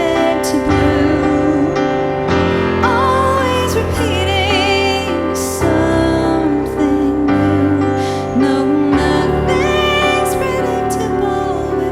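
Music: a wordless passage of sustained chords with wavering melodic lines and a few short hissy bursts, built partly from forest recordings of birdsong and rustling leaves tuned to play as instruments.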